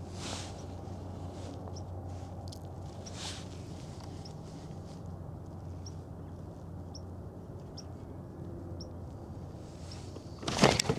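Quiet steady background on the water with a low hum and faint, widely spaced light ticks, then a sudden loud burst of handling noise about ten seconds in as the angler sets the hook on a striking bass.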